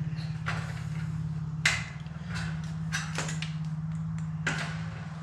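Sharp metallic clicks and knocks from a screw and driver being worked into a dryer's sheet-metal heater housing as its thermostat is fastened with a self-tapping screw. The loudest knock is about a second and a half in, with a cluster after it. A steady low hum runs underneath.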